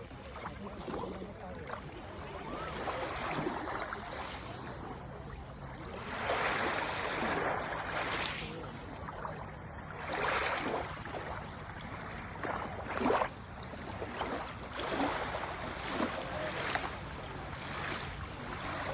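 Lake waves washing and lapping against the shore, one wash after another every couple of seconds, with a sharper splash about thirteen seconds in.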